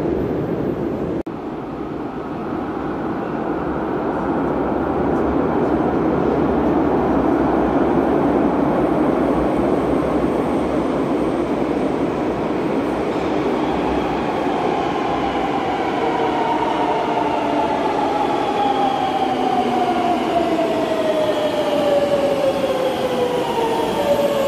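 Madrid Metro 9000-series train approaching through the tunnel and slowing into the station. Its rumble builds, and in the second half a whine falls steadily in pitch as it brakes.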